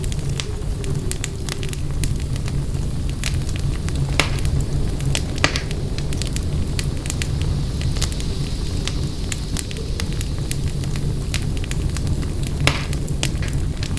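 Wood fire crackling in a fireplace: a steady low rumble of flames with irregular sharp pops and snaps, a few louder pops standing out.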